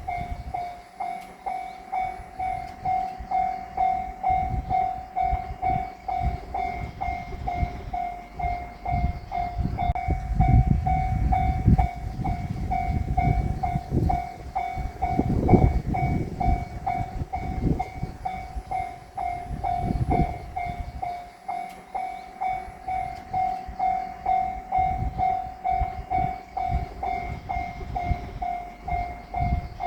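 Level-crossing warning bell ringing in rapid, even dings throughout. From about 9 s to about 21 s a diesel railcar train passes over the crossing, its engine and wheels making a heavy rumble with knocks as the wheels cross the rail joints.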